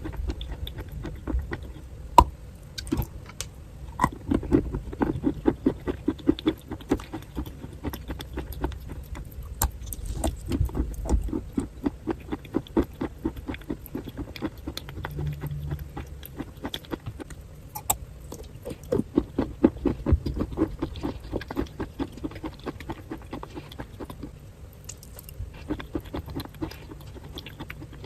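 Close-miked chewing of crunchy chalky clay. It comes as runs of quick crunching bites several times a second, with a few sharper cracks between them.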